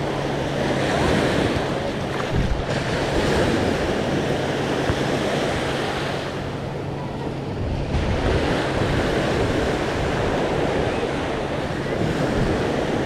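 Sea waves breaking and washing up on a sandy beach, swelling and easing, with wind buffeting the microphone in gusts. A low steady hum runs underneath and stops about halfway through.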